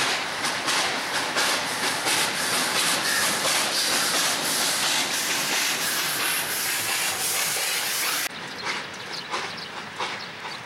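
Steam locomotive passing close below, its exhaust chuffing in a quick, even rhythm over a steady hiss of steam. A little after eight seconds the sound drops suddenly to quieter, more distant chuffing.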